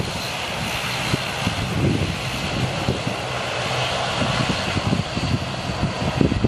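Bombardier Dash 8 Q400 turboprop's engines and propellers running at low taxi power as it turns onto the runway, a steady hum with a high whine above it. Wind buffets the microphone.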